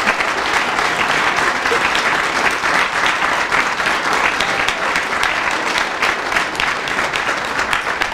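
Audience applauding steadily: many people clapping at once, keeping up through the actors' bow.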